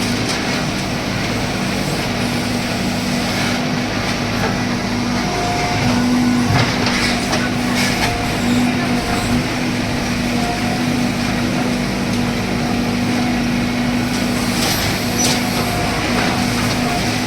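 A heavy machine's engine running steadily at a constant pitch, with a few brief knocks over it.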